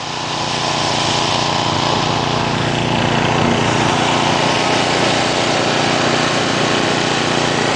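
Small engine running steadily, swelling a little in the first second.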